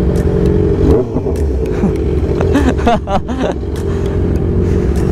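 Motorcycle engine idling steadily, a constant pitched hum with a low drone underneath.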